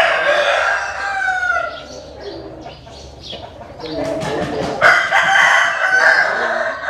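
Bantam roosters crowing: one long crow, already underway, trails off with a falling end about two seconds in, and another crow starts near five seconds.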